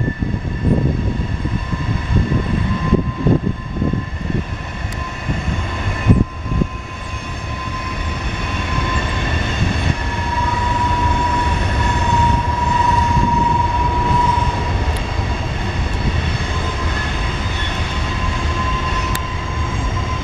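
Freight train of covered hopper cars rolling past, a steady low rumble of wheels on rail, with a sustained high-pitched squeal from the wheels on the curve that swells loudest about halfway through. A sharp clank about six seconds in.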